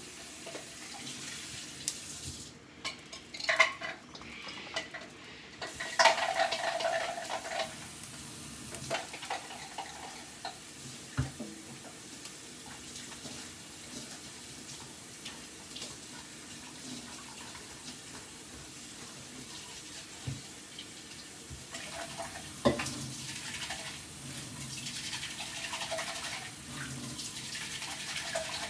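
Hand-washing a food chopper's parts in a kitchen sink in warm, soapy water: water running and splashing, with scrubbing and scattered clatters and knocks of the parts against the sink. A louder clatter comes about six seconds in.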